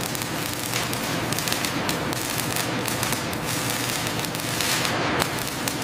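Arc welding crackling and sizzling from a multi-torch automated welding head running a seam on a steel cylinder, a dense irregular crackle over a steady low hum.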